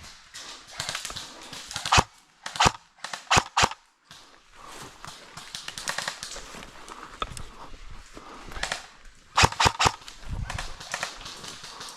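Airsoft guns firing: sharp cracks in two short clusters, about four near two to four seconds in and two or three more near the end, over a low, uneven background of rustling and movement.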